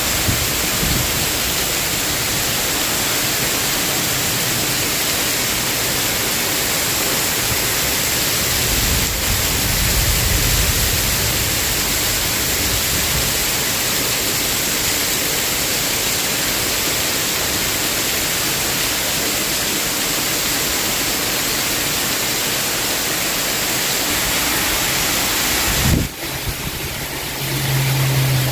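Heavy rain pouring down steadily, with water sheeting off a roof. A low rumble swells for a few seconds about nine seconds in, and near the end the rain sound breaks off briefly and a low steady hum comes in.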